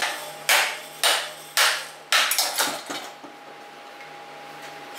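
Hammer blows on a steel drift, knocking the front fork out of a stripped 50cc scooter frame: about seven sharp metal strikes in the first three seconds, then they stop.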